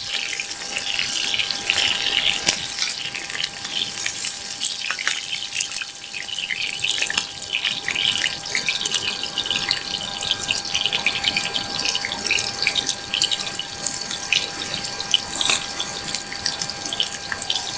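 Chopped onions sizzling in hot oil in a cast-iron skillet over a campfire: a steady, crackling sizzle full of small spitting pops.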